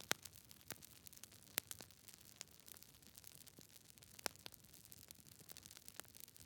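Wood fire crackling: irregular sharp pops and snaps over a faint hiss, with the loudest pops just after the start, about a second and a half in, and a little past four seconds.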